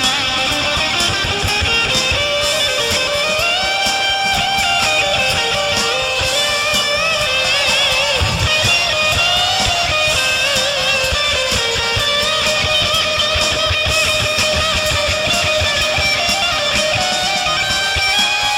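Blues band jamming, led by electric guitar, with held notes that bend and waver over a steady beat.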